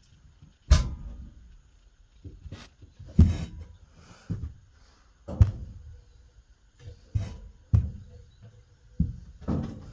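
A series of irregular knocks and clunks, about nine or ten of them, as a Swiss Army petrol stove and its case are handled, tilted and set down. The loudest knocks come about a second in, about three seconds in and a little past five seconds.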